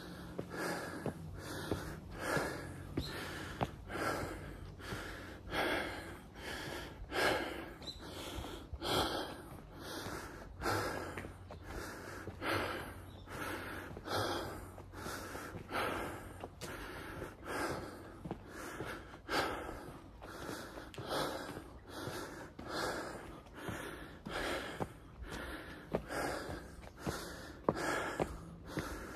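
A person breathing hard close to the microphone while walking uphill, with a breath in or out about once a second.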